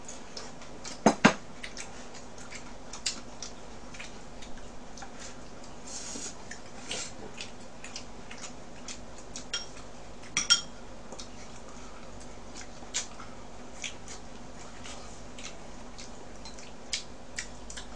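Chopsticks clicking and tapping against bowls and a frying pan while someone eats: a scatter of short sharp clicks, the loudest two about a second in, over a steady low hum.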